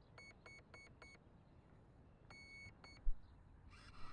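Electronic beeps: four short quick beeps, then a longer beep and one more short one. A low thump follows, with a brief rustle near the end.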